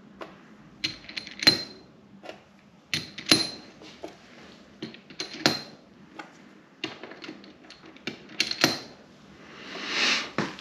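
Small steel spiral gears of a Wavetrac limited-slip differential clinking as they are set down on and picked up from a stainless steel workbench, about eight sharp metallic clicks with a short ring. A brief swishing noise rises and falls near the end.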